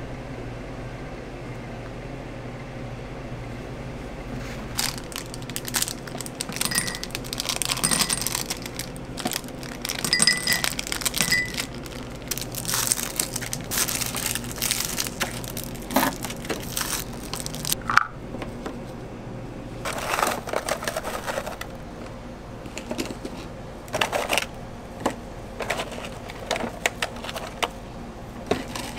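Steady kitchen hum with scattered crinkling of plastic wrappers and light clicks and clatter of utensils and containers as ingredients are handled, with a sharp click about two-thirds of the way through.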